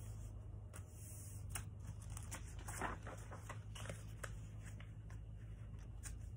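A sheet of plain printing paper being folded into concertina pleats by hand: soft rustling and a run of short crackles as fingers press each crease flat, the loudest about three seconds in.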